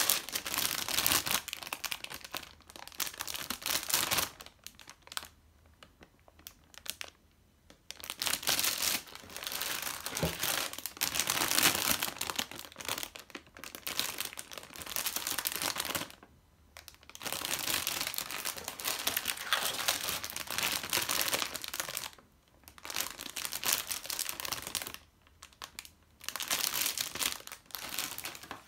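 Clear plastic bags around model-kit runners crinkling as the bags are lifted out of the box and handled. The crinkling comes in bursts several seconds long, with short pauses between them.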